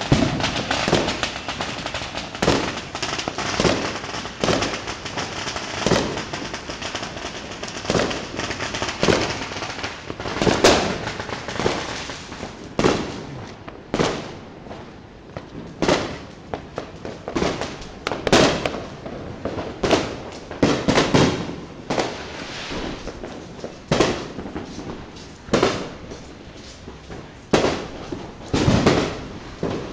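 Fireworks exploding in a continuous irregular barrage, each bang trailing off with an echo. For the first ten seconds or so the bangs overlap densely, then they come singly about every second or two.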